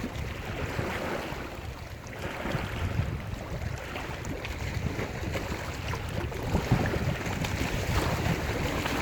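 Surf on a lake shore, waves washing in and breaking in an unbroken hiss that swells and eases, with wind buffeting the microphone as a gusty low rumble.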